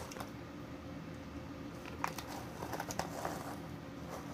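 Goldfish cracker bag crinkling as it is handled and tipped, with a few sharp little clicks about two to three seconds in as crackers drop onto the tabletop.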